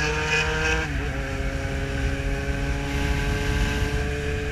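Yamaha XJ6 Diversion inline-four with a full exhaust idling steadily, its pitch settling slightly lower about a second in.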